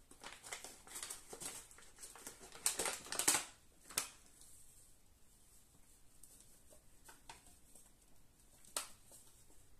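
Plastic flour bag crinkling as it is picked up and handled, loudest about three seconds in, with a sharp click at about four seconds. After that come only faint rustles and a single tap near the end.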